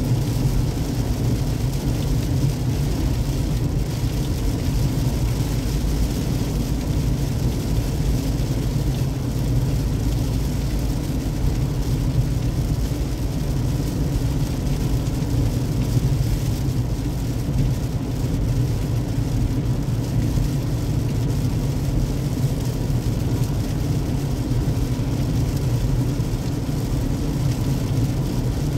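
Steady road noise inside a moving car's cabin on a wet highway: a low, even rumble of tyres and engine with a fainter hiss of water and rain over it.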